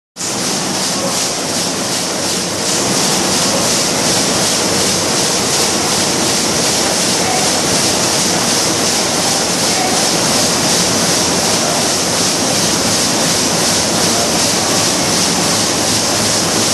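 Zangs 117R Schiffli embroidery machine running at about 182 rpm: a loud, steady mechanical running noise with a strong high hiss.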